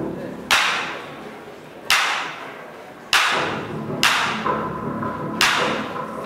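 Five loud, sharp percussive hits, spaced irregularly about a second apart, each ringing on in the hall: dancers stamping and clapping in a stepping routine.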